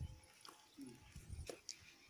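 Quiet open-air background with a brief, faint voice fragment and a couple of light clicks.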